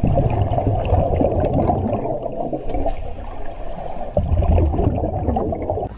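Muffled rushing and bubbling water picked up by a camera held underwater, with a heavy low rumble that swells about a second in and again after about four seconds.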